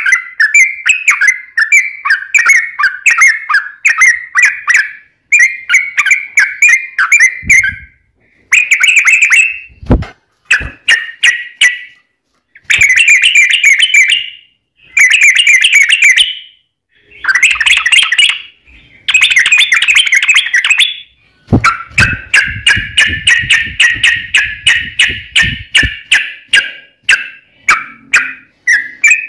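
Yellow-vented bulbul singing in rapid, bubbly chattering phrases a few seconds long with short pauses between them, and a longer unbroken run about two-thirds through. A few low thumps come between the phrases.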